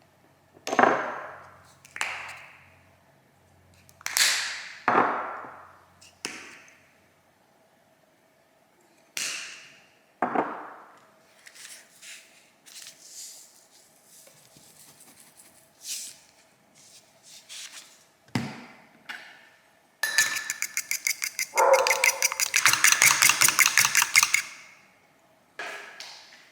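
Hard objects knocking and clinking: about ten separate sharp knocks with short ringing tails, then a fast run of clicking lasting about four seconds near the end.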